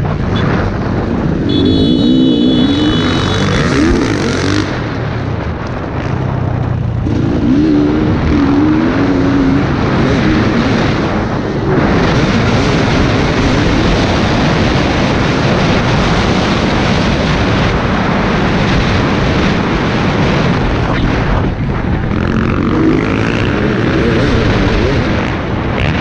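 KTM 250 EXC TPI fuel-injected two-stroke single-cylinder engine being ridden hard, revving up and down through the gears, with several short throttle-offs.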